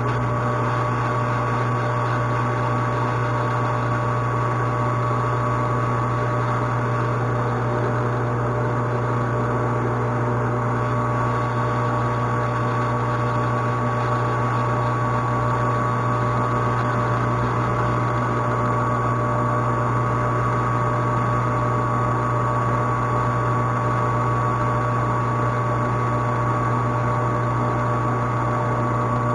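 Metal lathe running steadily: a constant motor hum with a few steady whining tones above it and no change in speed.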